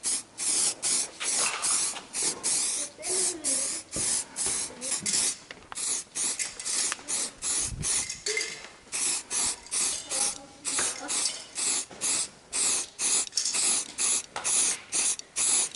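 Aerosol spray-paint can hissing in many short bursts, about two a second, as paint is sprayed onto a car grille.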